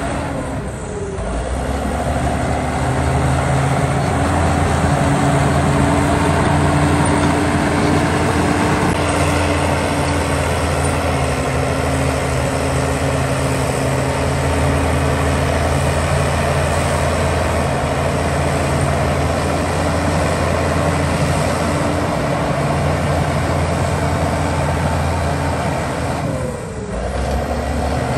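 Heavy diesel engine of earthmoving equipment running steadily under load, with a brief drop in level about a second in and again near the end.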